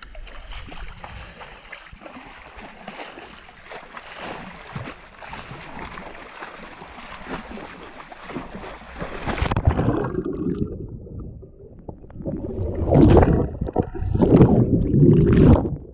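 Water rushing and splashing along a sea kayak's hull and paddle blade as it is paddled hard, heard close up as a steady hiss. About ten seconds in the hiss cuts off and gives way to louder, muffled sloshing surges as the kayak heels over and water washes up to the camera.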